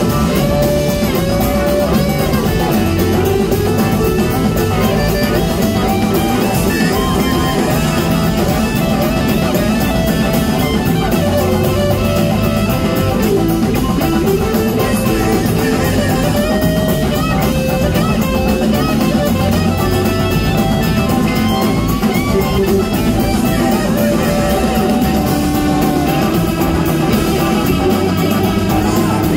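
Live rock band playing loud: an electric guitar solo with gliding slide-guitar lines over drums, bass and a second electric guitar.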